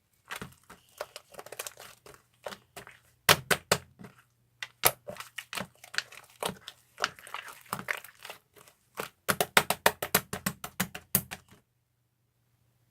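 Slime being squished and stretched by hand, giving off runs of sharp clicking pops as trapped air bursts, with a fast run of louder pops near the end before it stops suddenly.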